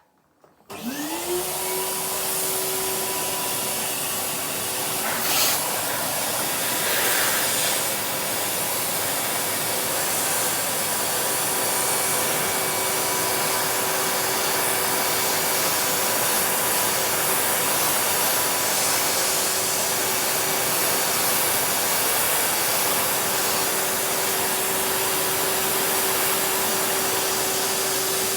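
Henry cylinder vacuum cleaner switched on about a second in, its motor pitch rising as it spins up, then running steadily while the floor is vacuumed with the brush tool.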